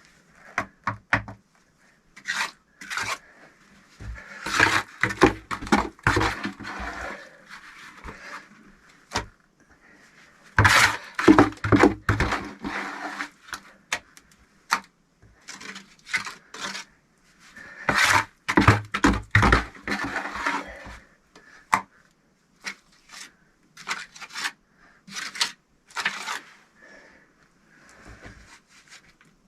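Repeated scraping and knocking in three longer spells, with single knocks between them. The sounds are typical of hand work on bricks and mortar.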